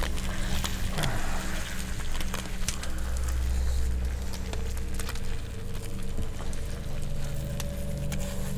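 Campfire crackling with scattered sharp pops, over a steady low drone.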